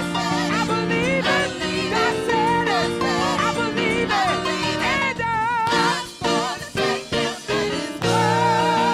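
Gospel praise team singing through microphones: a lead singer with vibrato over backing singers and accompaniment. About six to seven and a half seconds in, the music breaks into a few short stop-start hits before the full sound returns.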